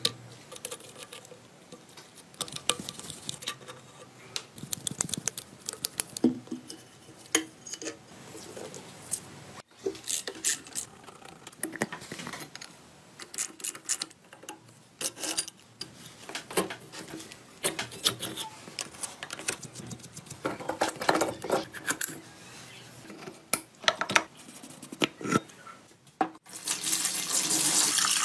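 Hand tools and small metal parts clicking and clinking irregularly as a motorcycle engine is taken apart. Near the end, a steady pour of liquid from a large plastic bottle into a plastic tub.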